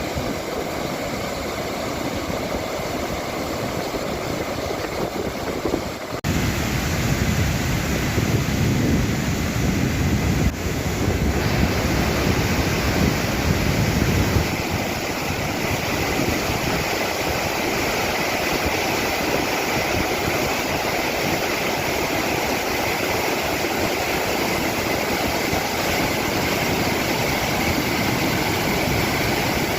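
Steady rush of water pouring over an overflowing reservoir spillway. The sound changes abruptly about six seconds in, becomes louder and deeper, then settles into an even rush.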